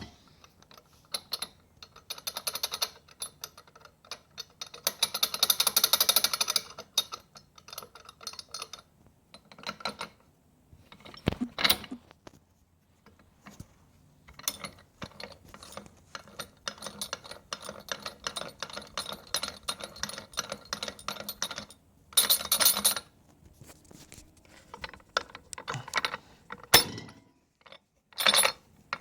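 Rebuilt Triumph Spitfire transmission being spun, its gears clattering and rattling in repeated bouts with brief pauses between them. It is noisy when spinning, and its synchro rings seem very loose.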